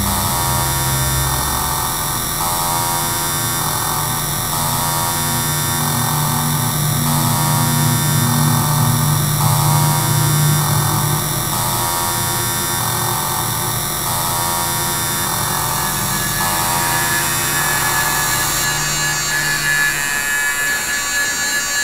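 Extratone music: kick drums at about 10,000 beats per minute blurring into a continuous harsh buzzing drone, its tones shifting in blocks about once a second. The texture changes a few seconds before the end, the highest part dropping away as a new higher tone comes in.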